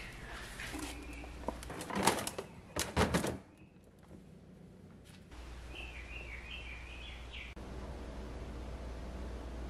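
Hard plastic food storage containers knocking and clattering as they are handled and set down, with two louder knocks about two and three seconds in. Later a low steady hum comes in, and a bird chirps briefly.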